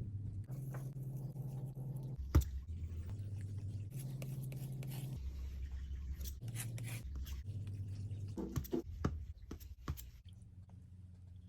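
Soft, low bass notes changing pitch every second or so, with scratching and sharp clicks over them. A single loud click comes a little after two seconds in, and a run of clicks comes near the end.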